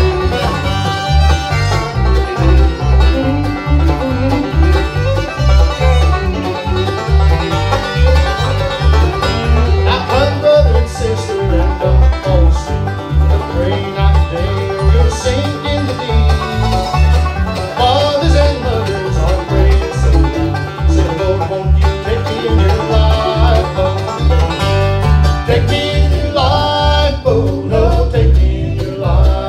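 Live bluegrass band playing a traditional bluegrass gospel song: rolling five-string banjo, strummed acoustic guitar, fiddle and mandolin over a steady electric-bass beat.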